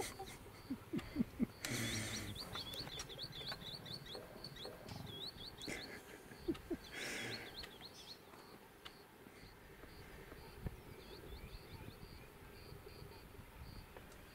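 Lion cubs making a few short, low calls and two brief noisy bursts as they play, while a small bird chirps over and over in the background.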